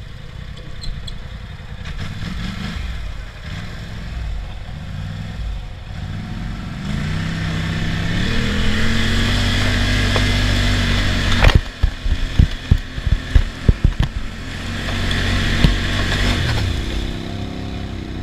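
Polaris ATV engine revving while stuck in thick mud and being towed out, its pitch climbing about halfway through and holding high for a few seconds. Then comes a quick run of sharp knocks and clatter, and the engine revs again near the end.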